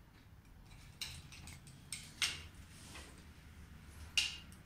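A few small, separate clicks and knocks of hard plastic and metal parts being handled, with the sharpest one near the end: a TV stand foot, screws and screwdriver during fitting.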